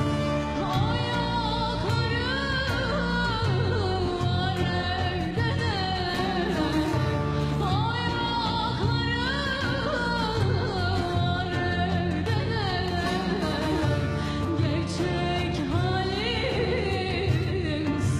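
A woman singing an ornamented Turkish folk melody, backed by a folk ensemble of frame drums, bağlama and wooden flute keeping a steady rhythm.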